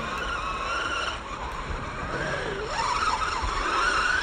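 Electric RC car's motor whining, rising and falling in pitch as the throttle is worked, over a steady rushing noise.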